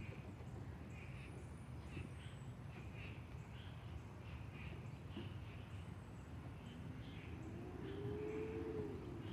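Repeated short chirping animal calls, one or two a second, over a steady low rumble. Near the end a low hum rises and then falls in pitch.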